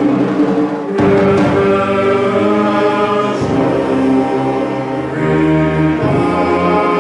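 Live symphony orchestra and wind band, clarinets among them, accompanying a small male chorus singing sustained chords. A sharp percussion stroke sounds about a second in, and the chords change twice.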